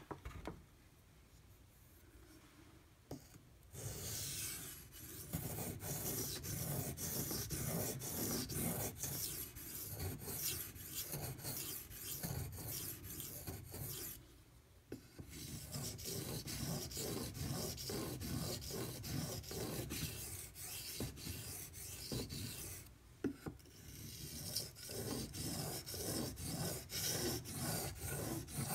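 Knife blade stroked back and forth across a wet 1000-grit Imanishi waterstone: steady, rhythmic rasping of steel on stone. It starts about four seconds in and breaks off briefly twice.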